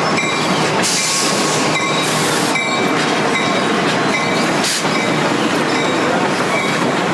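Steady, loud rumbling noise of a moving vehicle, with short hissing surges about one second, two seconds and nearly five seconds in.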